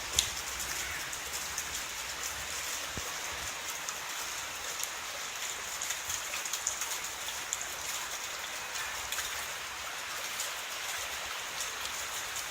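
Typhoon rain falling steadily, an even hiss of drops on surfaces, with one sharp tap just after the start.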